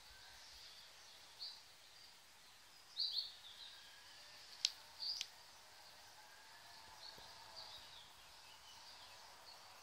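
Small songbirds chirping in short scattered calls over faint outdoor background noise. There is a louder cluster about a third of the way in, and two sharp clicks just before the middle.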